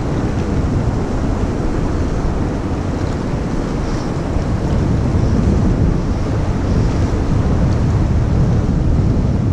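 Steady rush of fast-flowing river water over rocks, mixed with wind buffeting the microphone.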